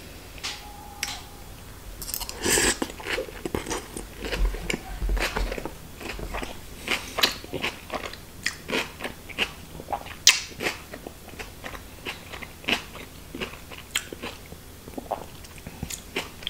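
A person chewing a mouthful of herring salad with fresh courgette and red paprika, close to the microphone. Many short, irregular crunches.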